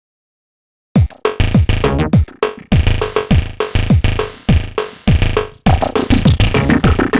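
Samsung Anycall SCH-E370 ringtone, synthesized electronic music from the phone's MMF sound set. After about a second of silence it starts up with repeated drum-machine kicks that drop in pitch, and synthesizer chords.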